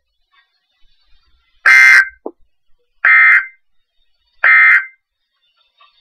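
Emergency Alert System end-of-message data bursts from a NOAA weather radio's speaker: three short, buzzy digital two-tone bursts about a second and a half apart, signalling that the Required Weekly Test has ended.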